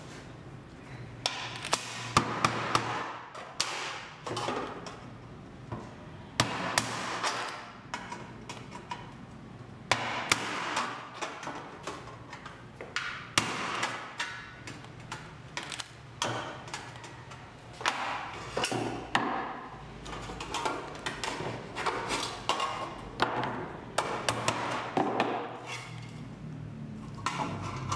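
A steel tool jabbing and scraping through a thin corrugated galvanized steel sheet on a wooden board, punching a starter hole: irregular sharp metallic taps and knocks with scraping in between.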